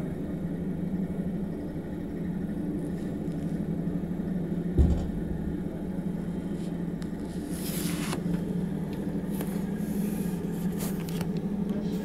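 Steady low hum from inside a railway carriage standing in a bogie-exchange shed during the wheel change. One dull thump about five seconds in, and a few brief hisses and light clicks in the second half.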